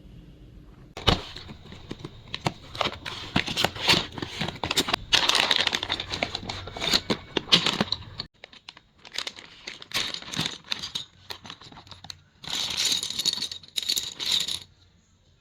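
Keycap packaging being handled and torn open: crinkling, rustling and tearing with many small clicks, in spells that start about a second in and stop shortly before the end.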